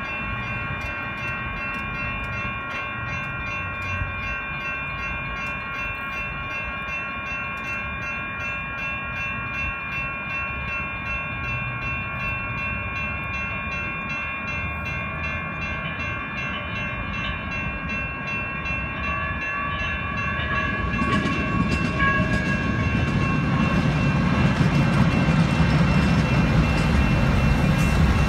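Several electronic railroad crossing bells ringing steadily and rapidly, warning of an approaching train. From about twenty seconds in, a light rail train's rumble rises and grows loud as it reaches the crossing.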